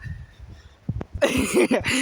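Wind buffeting the microphone, a low rumble. In the second half a brief burst of a voice rises over it.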